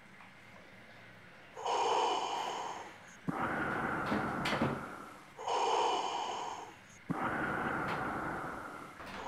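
Loud, slow breathing through a half-face respirator with twin filter cartridges: two full breaths, each a drawn breath followed by a rushing breath out that starts abruptly.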